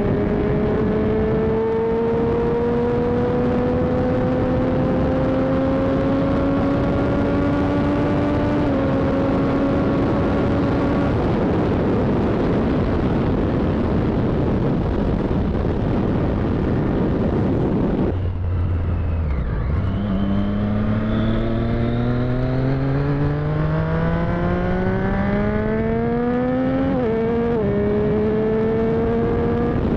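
Motorcycle engine pulling in gear at speed, its note climbing slowly with a gear change about nine seconds in, under steady wind rush on the microphone. For several seconds the engine fades under the wind, then the pitch drops suddenly and the engine accelerates hard with a steeply rising note, shifting gear again near the end.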